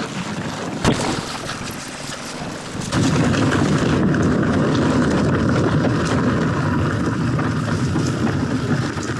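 Wind rushing over a handlebar-mounted action-camera microphone, mixed with a Commencal Meta TR mountain bike's tyres rolling and rattling down a dry, rocky dirt trail. A sharp knock comes about a second in, and the rumble grows louder and rougher from about three seconds in.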